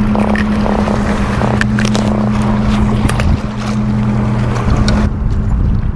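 A boat motor running with a steady low hum, over rough wind and water noise, with a few light clicks.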